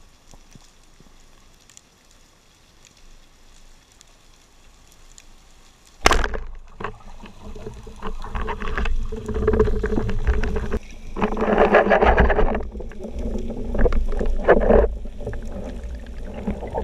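Faint underwater hiss, then a sharp crack about six seconds in as a speargun fires, followed by loud churning water noise, bubbling and knocks as the spearfisher kicks up toward the surface.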